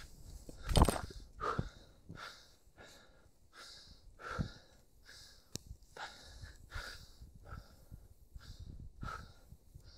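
Skis swishing through deep powder snow in quick, even turns, a soft whoosh about every two-thirds of a second, with one louder whoosh about a second in.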